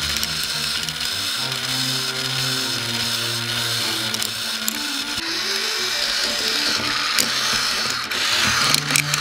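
Toy electric hand mixer running steadily, its plastic beaters whirring as they spin through a bowl, over background music.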